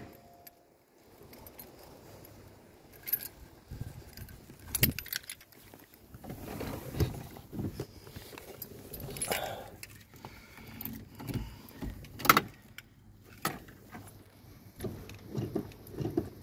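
Car keys jangling, with scattered knocks and rustling as someone handles things in a car's cabin; the engine is not running.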